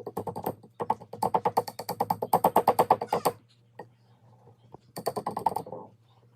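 A whisk beating brownie mix and water in a small bowl: fast, rapid strokes in three spells, the longest lasting about two and a half seconds, with the whisk clattering against the bowl.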